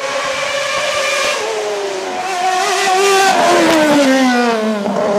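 Race car engine sound revving through the gears, its pitch wavering and sliding down over the second half, played for a toy formula car.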